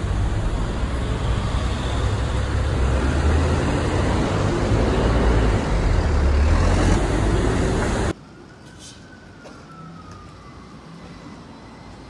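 Loud city traffic noise with a heavy low rumble, cutting off suddenly about eight seconds in. Quieter street traffic follows, with a faint siren rising and falling once.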